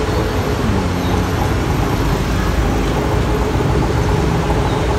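Steady city road traffic: a continuous mix of car, bus and motorbike engines and tyres, with one engine's pitch falling about half a second in.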